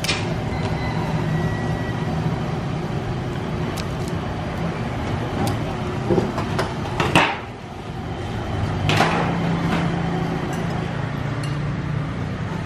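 Street-food cart sounds over a steady low hum of street noise: a few scattered knocks and clinks of a knife and utensils on the chopping board and pots. The loudest knock comes about seven seconds in and another about nine seconds in.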